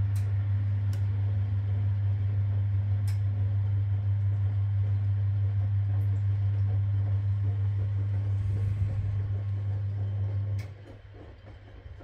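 Drum motor of a 1962 Constructa K4 washing machine running with a steady low hum as the drum tumbles the wash. A few faint clicks sound over it, and the hum cuts off about ten and a half seconds in as the drum stops turning.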